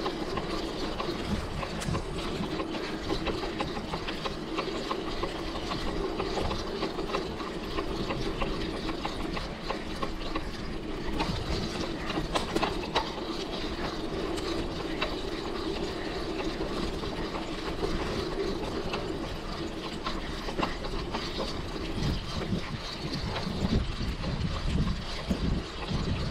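Mountain bike coasting on an off-road trail, its rear hub's freewheel ratchet clicking rapidly, with chain and frame rattling over bumps.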